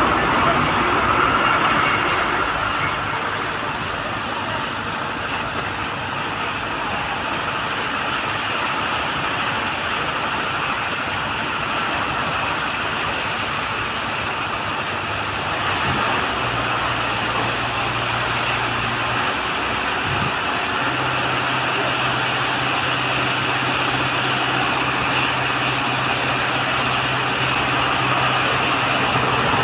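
Diesel engine of a Tata Signa 2823.K concrete transit mixer truck running steadily with a low hum, which shifts in pitch a little about halfway through and again about two-thirds of the way in.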